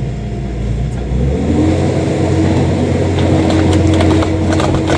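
Skid steer's engine running, then revving up under hydraulic load about a second in, with a steady whine from then on. Several sharp cracks are heard in the second half.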